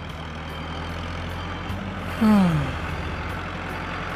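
Steady low engine hum of an animated vehicle. About two seconds in, a loud pitched tone slides downward for about half a second.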